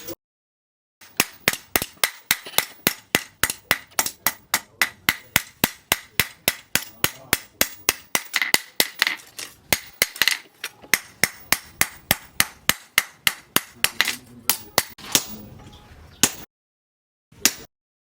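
Hand hammer striking hot steel on an anvil in quick, regular blows, about four a second, with a metallic ring sustained under the strokes: a knife blank being forged by hand. The hammering cuts off abruptly, then a few more strikes follow near the end.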